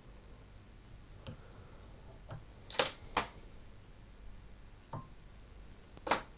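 Scattered sharp clicks and light ticks of small metal fly-tying tools being handled at the vise during a whip finish on the fly's head. The loudest pair comes about three seconds in, with another pair near the end.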